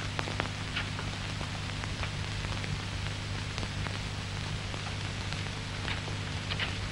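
Steady hiss and low hum of an old film soundtrack, with scattered faint crackles and a few short, faint high sounds, about a second in and near the end.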